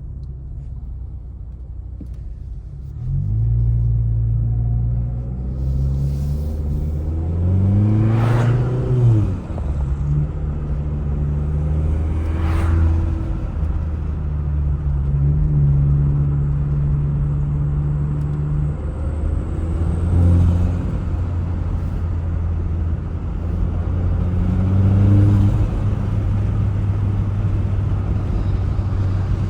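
Mk7 Volkswagen Jetta's turbocharged four-cylinder engine, fitted with an aftermarket intake, pulling under acceleration: the engine note picks up about three seconds in, climbs in pitch and drops sharply at a gear change about nine seconds in, then rises and falls again several more times.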